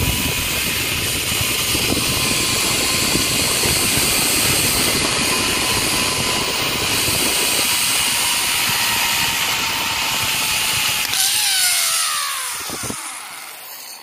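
Zipline trolley pulleys running along the steel cable with a steady whine, over wind rushing across the microphone. Near the end the whine glides down in pitch and fades as the trolley slows.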